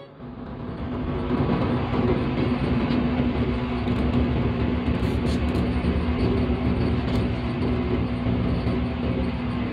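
Diesel-electric locomotive running at speed, heard from inside the cab: a steady rumble of engine and wheels on the track with a steady hum. It builds back up over the first second after a brief dip and then holds even.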